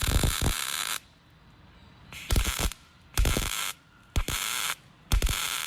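Resistance spot welder joining the new wheelhouse panel to the truck's bedside: a run of five short spot welds, each a thump followed by a burst of hiss lasting about half a second, roughly one a second.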